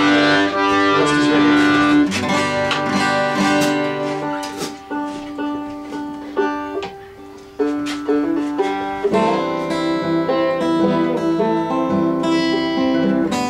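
A small acoustic folk band playing an instrumental intro: strummed acoustic guitars over held accordion chords. The playing softens and drops away about seven seconds in, then comes back in fuller.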